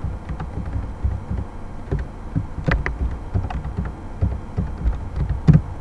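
Computer keyboard being typed on: irregular keystrokes, mostly dull thuds with a few sharper clicks, the loudest near the end.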